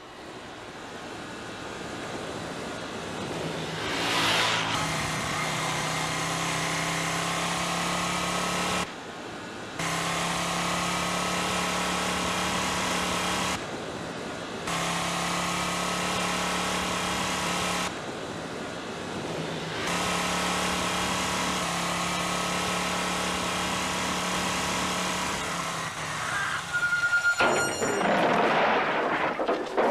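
Motorcycle engine running steadily, growing louder over the first few seconds as the bike approaches, then holding a constant drone that breaks off abruptly several times. Near the end come a brief high steady tone and a loud rush of noise.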